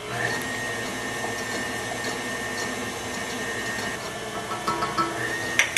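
Electric stand mixer motor starting up and running steadily with a thin high whine, beating a thick egg-yolk batter while dry flour mixture is added a little at a time.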